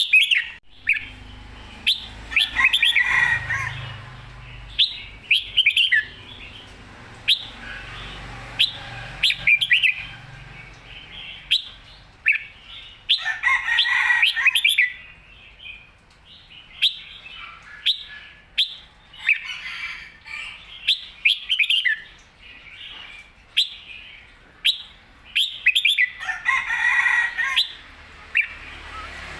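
Caged red-whiskered bulbul singing: short sharp chirps every second or so, broken by fuller warbled song phrases every few seconds.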